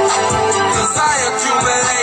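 Hip hop music with a steady beat.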